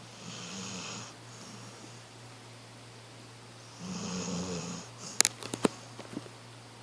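Snoring in sleep: two snores about three and a half seconds apart, each a low buzzing tone with breathy hiss, the first just after the start and the second about four seconds in. Just after five seconds comes a quick cluster of sharp clicks, the loudest sound here, over a faint steady low hum.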